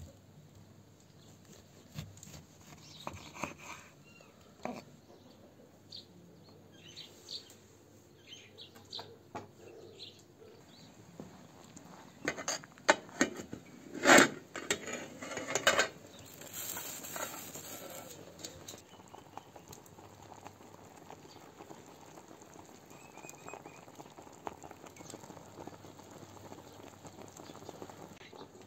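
A knife tapping and cutting on a wooden board, then a clatter of metal as the lid of an aluminium stockpot is handled and lifted off, loudest at about 14 seconds. After the lid comes off, a steady hiss of the steaming pot.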